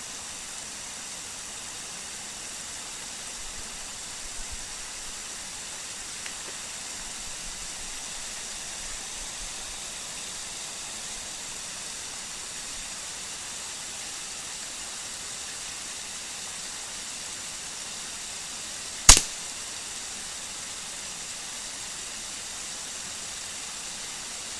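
A single sharp crack of a .22 LR rifle shot about three-quarters of the way through, over a steady hiss.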